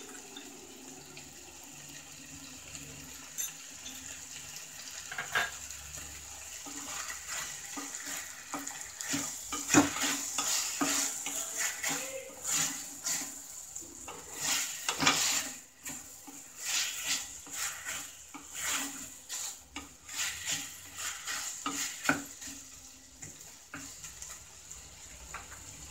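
A spatula stirring and scraping chicken and masala around an aluminium pressure cooker in a quick, uneven run of strokes against the metal. It is light at first, busiest in the middle, and eases off near the end.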